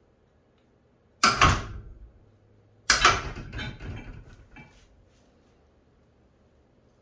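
Metal lathe parts being handled: two loud knocks about a second and a half apart. The second rings on briefly and is followed by a few lighter clicks.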